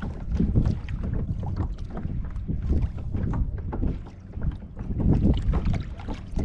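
Water lapping and slapping irregularly against a kayak's hull, with wind buffeting the microphone as a steady low rumble.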